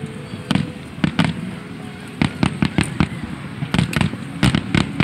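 Aerial fireworks shells bursting overhead: many sharp bangs at irregular intervals, several coming in quick clusters.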